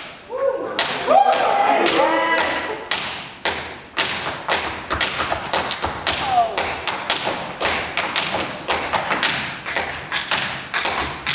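A run of sharp percussive thumps and taps, a few a second and coming faster and denser towards the end.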